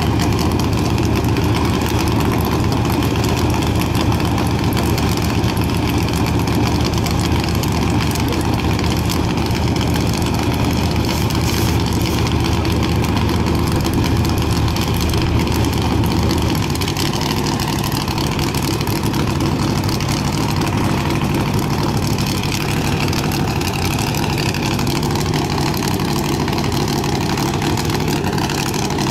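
Car engine running steadily, its note changing and getting slightly quieter about 17 seconds in.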